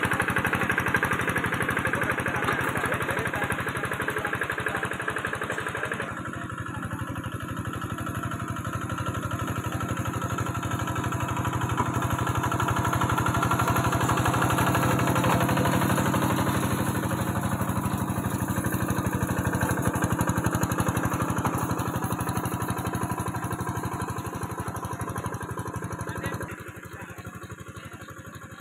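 Engine of a paddy-field tillage machine running continuously while working through mud. It dips about six seconds in, swells again, and drops in level near the end.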